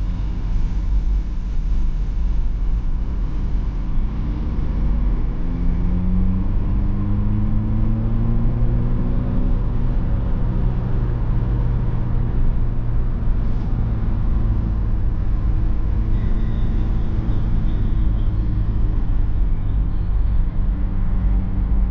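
Cabin sound of a BMW E46 320d on the move: its four-cylinder diesel running under way over heavy tyre and road rumble. The engine note rises a few seconds in as the car picks up speed, then holds steady.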